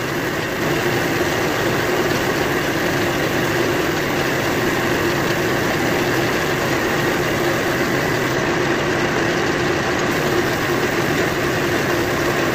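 Compressed-air paint spray gun hissing steadily as it sprays paint, over the steady hum of a running air compressor.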